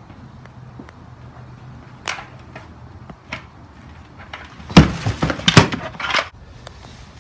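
Scattered clicks and knocks, then a cluster of loud thumps and knocks between about five and six seconds in.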